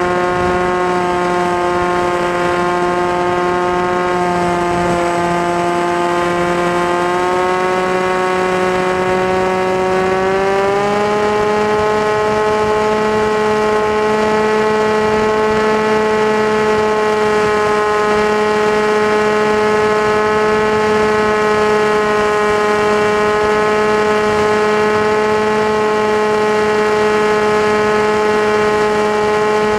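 FPV aircraft's motor and propeller giving a steady, high-pitched whine that rises a little in pitch about ten seconds in, then holds.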